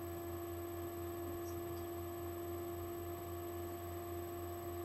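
Steady electrical hum with a constant pitched tone over faint room noise; nothing else stands out.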